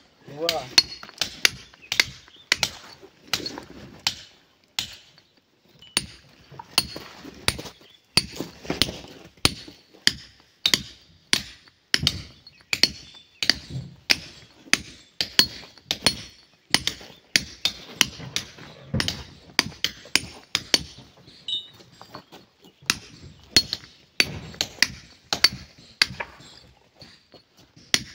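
Hammer striking a steel chisel held against stone to split a rock slab: repeated sharp metallic clinks, about two a second and slightly irregular, each with a brief ring.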